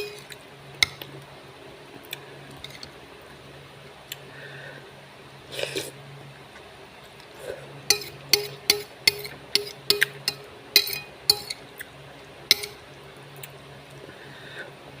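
An eating utensil clinking against a bowl during a meal: a run of sharp clinks, about two a second, from about eight seconds in to past twelve seconds, each with a short ring, after a few scattered clinks earlier.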